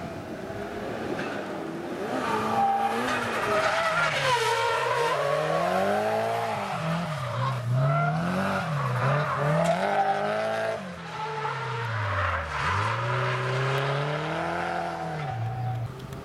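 Nissan Silvia S15 drifting: the engine revs rise and fall over and over as the throttle is worked through the slides, with tyre squeal throughout.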